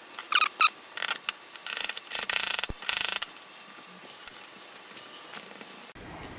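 A utility razor blade in a scraper handle, scraping and prying at a BuildTak sheet stuck fast to a glass bed, in a series of short strokes. The longest strokes come near the middle, and the scraping stops a little past three seconds in, leaving a few light clicks.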